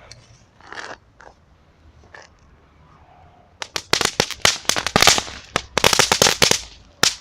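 Crackling firework going off: a dense run of sharp crackling pops starts about three and a half seconds in and lasts about three seconds, ending with one last pop, after a few faint scattered noises.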